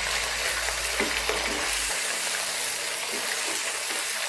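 Raw mutton pieces sizzling and searing in hot oil in a non-stick kadhai while a wooden spoon stirs them, with a few short scrapes of the spoon against the pan.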